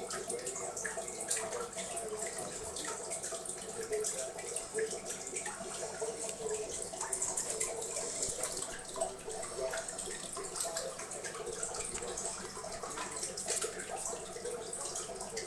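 Aquarium water running steadily, a continuous trickling and bubbling dotted with many small splashes and ticks.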